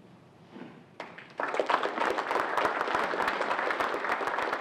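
Audience applauding: a first clap about a second in, then many people clapping steadily from about a second and a half in.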